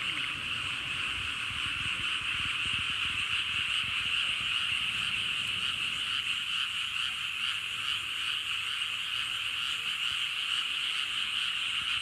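Dense chorus of many frogs calling together from flooded rice paddies: a steady, high-pitched wall of calls with no pauses.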